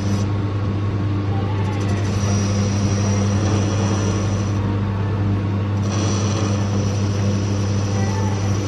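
Metal lathe running steadily with a deep, even motor hum as it turns the back of a Shimano 11-speed cassette, taking about 1.8 mm off so the cassette fits a 10-speed freehub. A faint high whine comes in about two seconds in, drops out near the five-second mark and returns about a second later.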